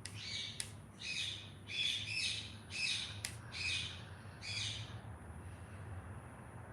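Pit bull dog snoring in its sleep: a run of about seven short, high-pitched breathy snores, roughly one every 0.7 s, that stops about five seconds in. A steady low hum runs underneath.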